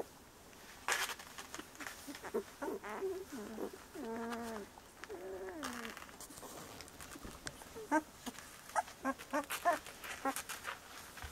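Young bordoodle puppies, about 17 days old, whining: a few drawn-out whines that fall in pitch, then a quick run of short squeaks near the end.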